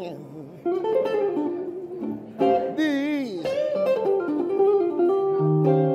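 Amplified electric guitar playing a single-note blues lead, with notes bent and wavering in pitch.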